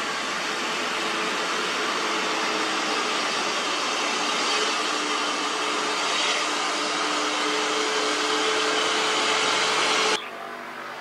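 Diesel engine of a loaded light truck pulling along a hill road, a steady noisy drone heard from a distance. It drops suddenly to a quieter background about ten seconds in.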